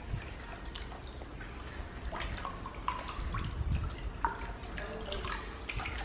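Water sloshing and splashing in a plastic basin as hands scrub a natural sharpening stone, with drips falling back into the water as the stone is lifted.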